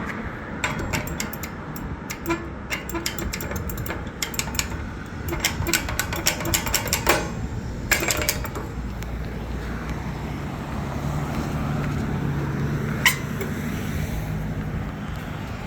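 Econolite pedestrian crosswalk push button clicked rapidly over and over for about eight seconds, with street traffic running behind. Later a vehicle engine hums steadily and one more click sounds.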